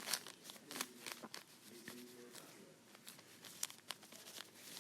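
Faint crinkling and rustling of a plastic packaging bag being handled and rubbed with a cotton swab, in short scattered crackles.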